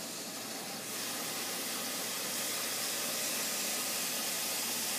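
Kitchen faucet running into a plastic bottle, water filling it over formula powder: a steady rush of water that gets a little louder about a second in.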